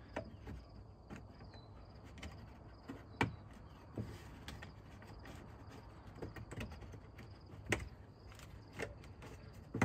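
Scattered light clicks and knocks of a cargo-area interior trim piece being handled and slid onto its mounts, with one louder knock about three-quarters of the way through.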